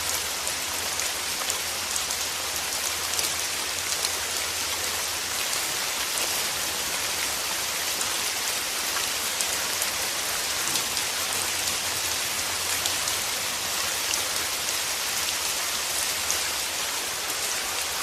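Steady rain falling, an even hiss dotted with many small drop ticks, over a faint low hum.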